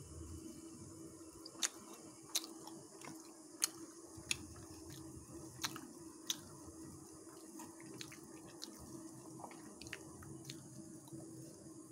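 A pot of water with bilimbi heating on a gas stove: a faint steady hum under scattered sharp ticks and small pops, most of them in the first half.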